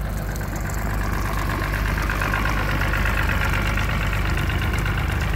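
2016 Evinrude 250 E-TEC V6 two-stroke outboard and a Yamaha 9.9 high-thrust kicker outboard idling steadily together, their lower units in test barrels of water.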